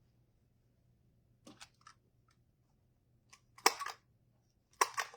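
A few short, sharp clicks and rustles from hands working a ribbon bow and its tools, after a quiet first second and a half; the loudest comes a little over two thirds of the way in.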